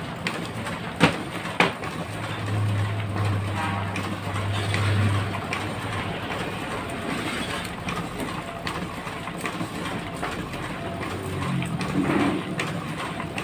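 Office photocopier running with a steady mechanical rumble and a low hum for a few seconds, while paper sheets are handled and shuffled on it; two sharp clicks about a second in.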